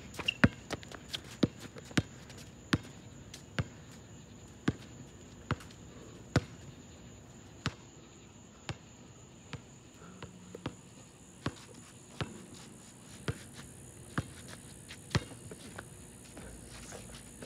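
A basketball bouncing on an asphalt court as it is dribbled: quick bounces in the first second or so, then a slower, fairly even beat of about one bounce a second.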